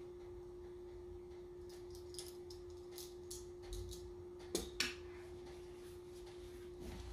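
Light clicks and taps of siomai dumplings and kitchen utensils being set into a steamer, with two sharper clacks about four and a half seconds in, over a steady low hum.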